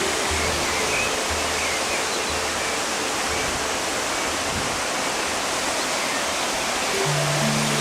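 Waterfall: a steady rush of falling water. Faint music runs underneath, with a low note about once a second in the first half and held low tones near the end.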